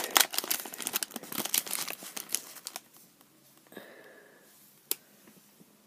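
Foil biscuit packet crinkling in the hands for about three seconds, then quieter, with a single light click about five seconds in.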